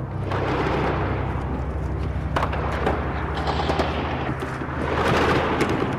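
Battle sound effect: a noisy rumble that swells in twice, with scattered sharp cracks of gunfire, over a low steady music drone.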